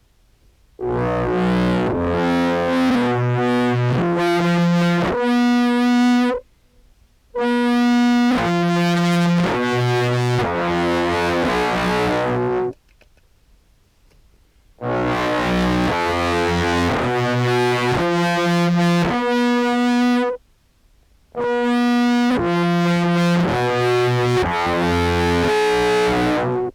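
Contrabass clarinet samples played through an envelope filter, POG2 octave pedal and fuzz: a buzzy, distorted line of stepped notes, about half a second each, in four phrases with short silent gaps between them.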